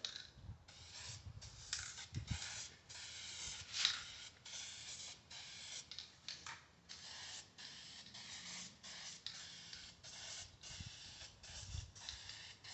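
Aerosol can of Duplicolor plastic adhesion promoter spraying in a long series of short hissing bursts, about one a second, laying a light first coat onto plastic grille parts.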